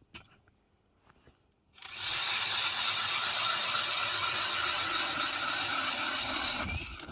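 Power ice auger boring a hole through thick lake ice: a steady mechanical whir that starts abruptly about two seconds in and stops shortly before the end.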